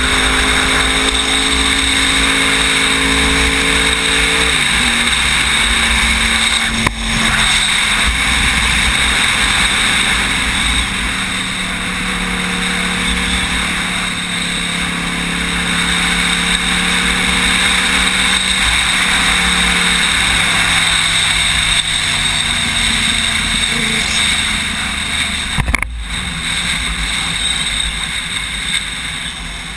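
Sportbike engine running at speed on a race track, heard from an onboard camera under heavy wind rush over the microphone. The engine note drops about four seconds in, then holds steady, and the whole sound eases a little near the end.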